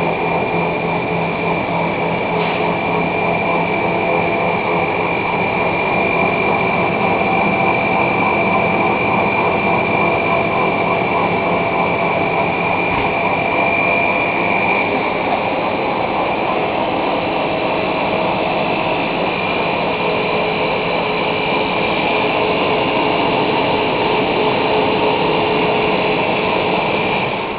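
Center-filled snack extrusion line running: a steady mechanical hum of its motors with a constant high-pitched whine.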